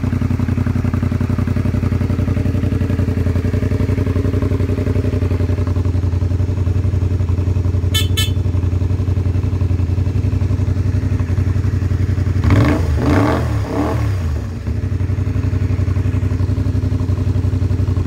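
Honda VTR250's 250cc V-twin idling steadily through a megaphone shorty slip-on exhaust while warming up after a cold start. About twelve seconds in, the engine revs up briefly and falls back to idle over about two seconds.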